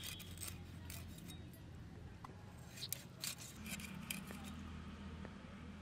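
Short metallic scrapes and clicks from an iron floor-mounted cutting blade (bonti) being scraped and rubbed clean, in a few bursts, the loudest about three seconds in. A low steady hum runs underneath.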